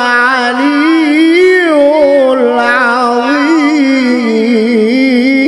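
A man reciting the Quran in the melodic tilawah style of a qori, holding long notes into a microphone and winding them through wavering ornamental turns with almost no breaks.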